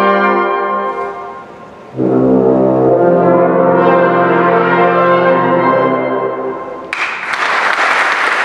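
Brass band finishing a piece: a held chord ends about a second in, and after a short break a full final chord with a strong bass note is held for about four seconds and dies away. About seven seconds in, the audience breaks into applause.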